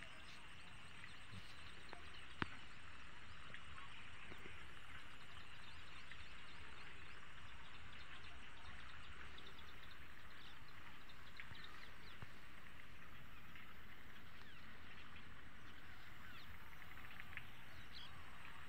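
Steady chorus of small animals calling in an open crop field, with a single sharp click about two and a half seconds in.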